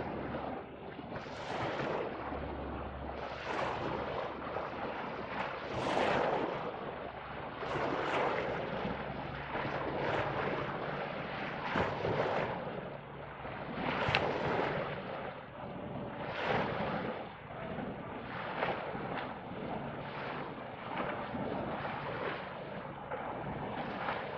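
Small waves washing onto a sandy beach, a swell of surf about every two seconds, with wind on the microphone.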